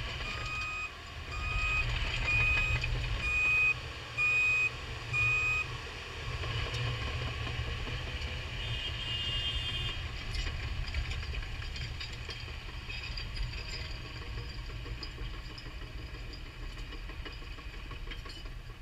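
The diesel engine of a Caterpillar D6K2 crawler dozer (Cat C7.1) running steadily as the machine drives away, its rumble easing slightly. In the first six seconds a backup alarm beeps six times, about once a second.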